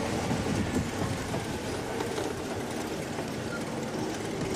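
Game-drive vehicle's engine running steadily as the vehicle moves, with a constant rumble and road noise.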